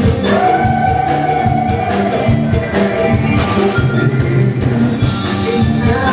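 Live Isan luk thung band music: a steady drum kit beat under a long held melody note for the first few seconds, with little or no singing.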